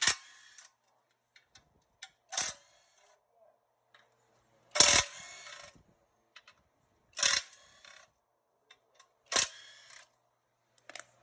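Five sharp metal clanks, each with a short ringing tail, about two and a half seconds apart: a removed engine oil pan and the broken timing-chain pieces in it being handled.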